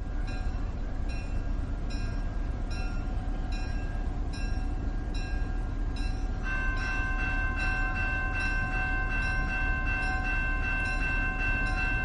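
A moving train running on rails: a steady rumble with regular clicks of the wheels over rail joints. A steady high-pitched tone joins about six and a half seconds in and holds.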